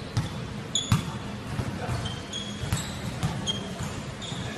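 A basketball bouncing on a hardwood gym floor with irregular thumps, the loudest about a second in. Short high sneaker squeaks come from players moving on the court.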